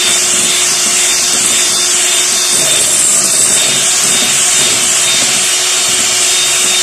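Electric hand mixer running steadily, its twin wire beaters whisking a runny egg-and-sugar batter in a glass bowl, with a constant motor whine over the whirring.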